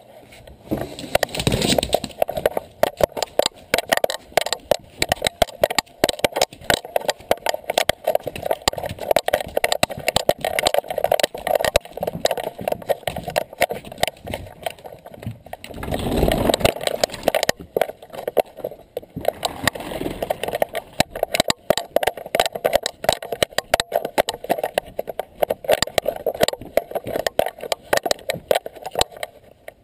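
Camera mounted on a dog, jostled as the dog moves about: a dense, continuous clatter of small knocks and rubbing on the mount, with a couple of heavier bumps, one about a second and a half in and one about sixteen seconds in.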